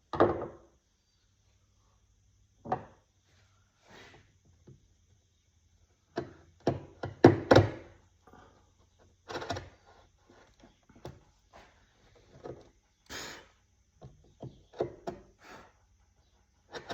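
Irregular wooden knocks and thuds from woodworking, about a dozen spread unevenly, with the loudest cluster about seven to eight seconds in.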